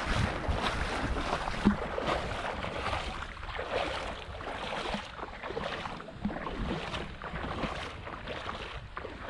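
Shallow seawater sloshing and splashing close to the microphone, uneven and continuous, with wind noise on the microphone and one sharp knock about a second and a half in.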